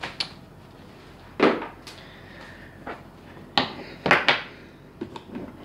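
Several sharp knocks and clacks of small hard objects, tools and rifle parts, being handled and set down on a hard tabletop. The loudest comes about a second and a half in, with a quick pair near four seconds.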